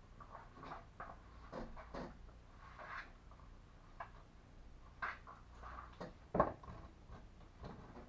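Barber's tools being handled: irregular light clicks and taps, with one sharper knock about six and a half seconds in.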